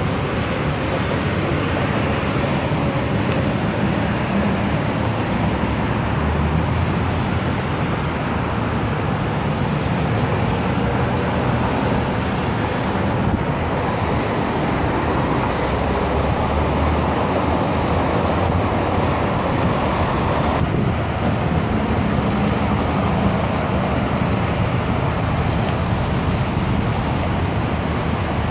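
Steady road noise of a car in motion: a constant low rumble of tyres and engine, with other traffic close by.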